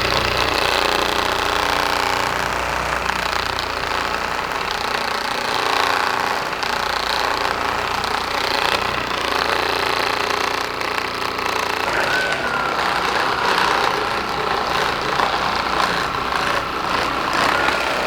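Handheld percussion massage instrument running steadily against the patient's muscles for soft-tissue release, a continuous motorised hammering buzz. A steady whine joins it about two-thirds of the way through.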